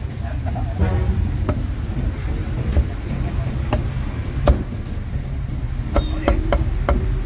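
Meat cleaver chopping roast duck on a round wooden chopping block: scattered sharp chops that come faster near the end, over a steady low background rumble.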